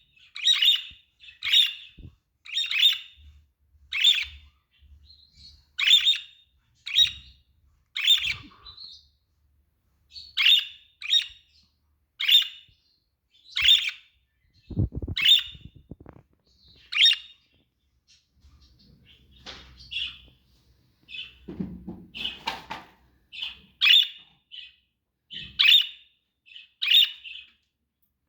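Pet budgerigars chirping: short, sharp calls repeated about once a second. A couple of low thuds come about halfway through and again around three-quarters of the way.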